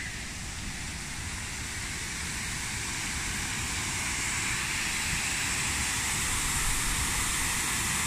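Small waterfall pouring over the end of a stone canal lock: a steady rushing of water that grows gradually louder.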